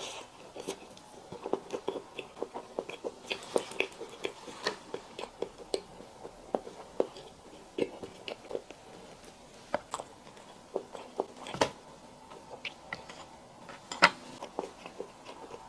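Close-miked eating: irregular wet mouth clicks and smacks of chewing and biting, with a few sharper clicks standing out, the loudest about twelve and fourteen seconds in.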